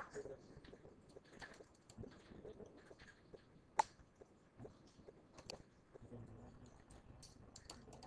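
Faint, scattered clicks of computer keyboard keys and a mouse as data is entered, with one sharper click about four seconds in.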